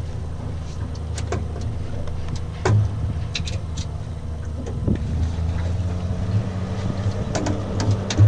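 Boat motor running steadily at idle, with scattered sharp clicks and knocks over it.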